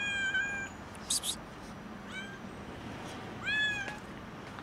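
Skinny stray kitten meowing loudly from hunger: three meows, a short one about two seconds in and a longer one that rises and falls about three and a half seconds in. Two brief high hissy noises come about a second in.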